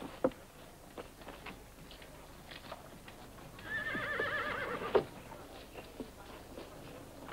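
A horse whinnies once about halfway through, a wavering call lasting about a second, followed at once by a sharp knock. Faint scattered clicks and knocks come before and after.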